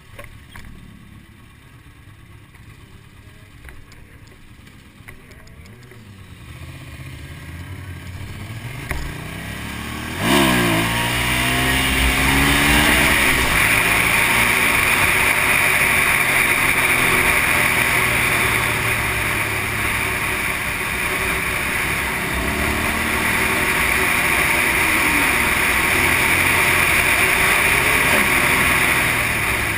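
Sport motorcycle engine heard from the rider's helmet camera. It runs low at first, with its pitch gliding up and down. About ten seconds in it gets suddenly louder and revs up hard, then runs steadily at speed under a loud rushing noise.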